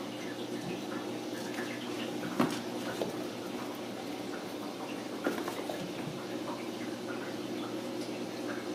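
Ragdoll kittens' paws and claws making scattered light clicks and taps on a tile floor as they play, the sharpest a little over two seconds in, over a steady low hum.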